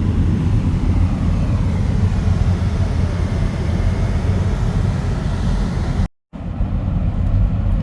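Steady low rumble of a car driving, engine and road noise heard from inside the cabin. It cuts out completely for a moment about six seconds in.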